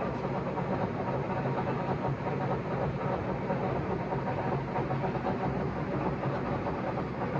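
LeBlond heavy-duty lathe running steadily under power from a rotary phase converter, its 10 hp, 1100 rpm motor driving the spindle with the clutch engaged. A camera tripod touching the lathe's chip pan adds vibration noise to the sound.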